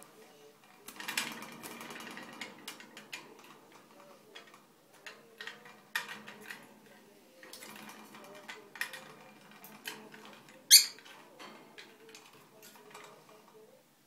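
Pet parrot making soft, wavering chattering sounds with many scattered clicks and taps, and one short, sharp, much louder sound about eleven seconds in.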